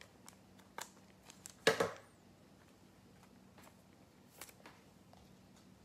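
Trading cards and pack wrappers being handled out of sight: a few light clicks and taps, with a short rustling clatter about two seconds in, over a faint steady hum.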